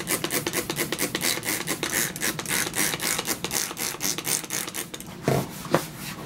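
Trigger squirt bottle pumped in quick succession, several sprays a second, wetting leather so it will score and cut more easily.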